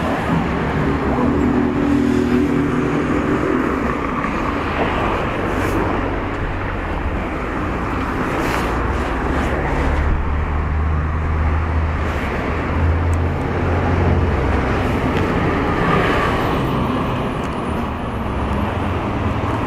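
Street traffic noise: cars driving past with a continuous low engine rumble that swells around the middle.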